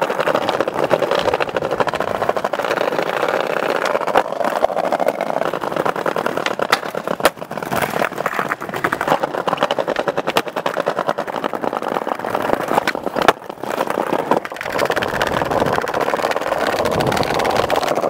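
Skateboard wheels rolling over brick pavers, a steady rumble with a rapid clatter from the paver joints. Sharp board pops and landings cut through it a few times, the loudest about seven seconds in and again around thirteen seconds.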